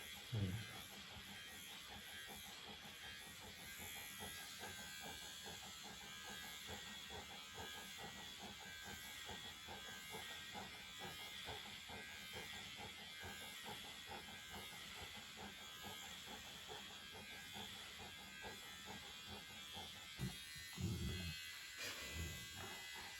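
Electric pet clippers buzzing steadily while trimming a dog's fur, with a short, louder low sound near the end.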